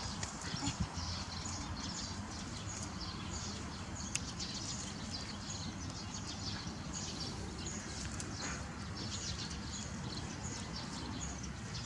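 Outdoor ambience of small birds chirping over a steady low rumble, with one sharp click about four seconds in.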